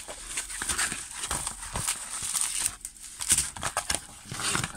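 Rustling and crinkling of a plastic-wrapped diamond-painting canvas being handled and moved, with irregular small taps and knocks.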